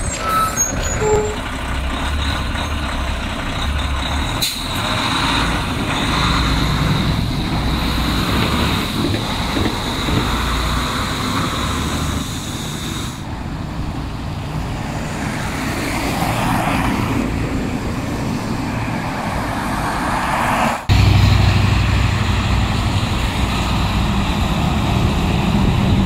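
Heavy dump trucks driving by on a wet street: diesel engines running with tyre hiss on the slush. About 21 seconds in the sound jumps suddenly to a louder, closer engine rumble.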